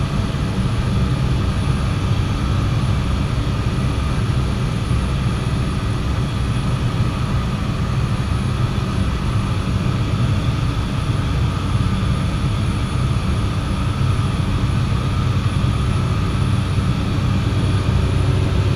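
Cessna 208 Caravan's single Pratt & Whitney PT6A turboprop engine and propeller running steadily in flight, heard from inside the cockpit: an even low drone with a constant whine above it.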